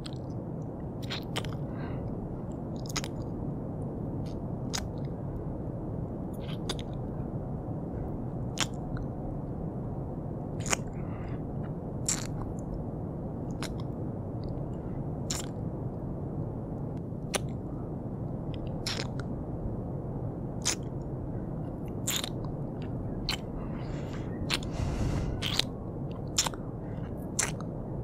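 Close-miked ASMR kissing sounds: short lip smacks and mouth clicks at irregular intervals, about one every second or two, over a steady low background hum.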